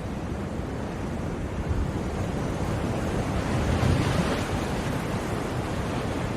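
Sea surf: a steady wash of waves that swells to a louder breaking crash about four seconds in.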